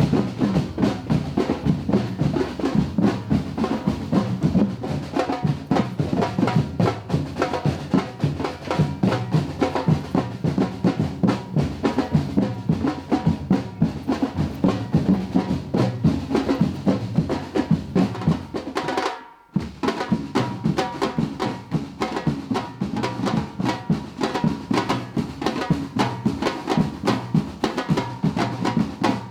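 Batucada-style percussion ensemble playing a dense, driving drum rhythm with deep bass drums and snare-type drums. The playing drops out for a split second about two-thirds of the way through, then resumes.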